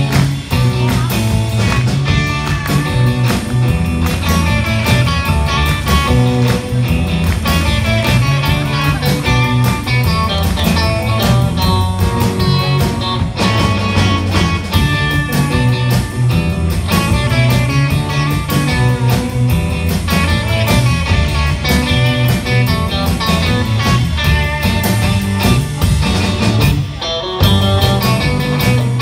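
Live rock band playing: electric guitars over electric bass and a drum kit, with a steady beat.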